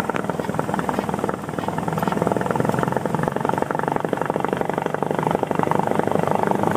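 Cessna 172M's four-cylinder Lycoming piston engine and propeller running steadily at low taxi power, heard from inside the cockpit as a fast, even pulsing drone.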